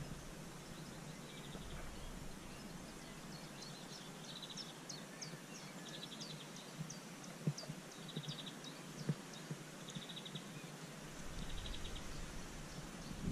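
Birds chirping outdoors: many short, high, downward-sweeping chirps, with a short buzzy trill every second or two, over faint background noise. Two soft knocks come near the middle.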